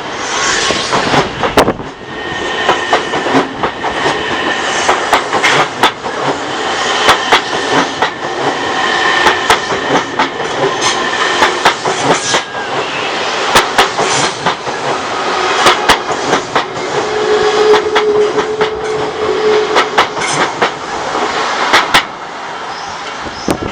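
Odakyu Odawara Line train passing over a level crossing, its wheels clicking sharply and irregularly over the rail joints above a steady running rumble. A steady tone sounds for a couple of seconds past the middle, and the sound drops away near the end as the train clears.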